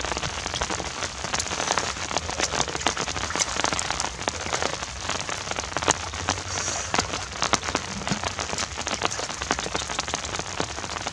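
Steady rain falling on shallow floodwater: a dense patter of drops, with many sharp ticks of drops landing close by.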